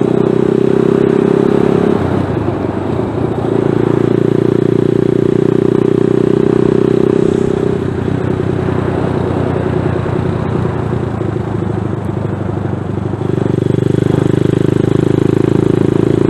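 ZS190 Grom-clone motorcycle's single-cylinder engine running while riding, a steady note that drops off briefly about two seconds in and again for several seconds from about eight seconds in, then picks back up near the end.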